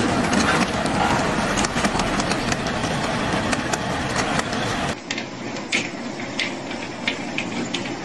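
Garden-scale model train running along its track, a steady rumble with fast clicking from the wheels and rails. About five seconds in it cuts off abruptly to a thinner sound with sparser sharp clicks.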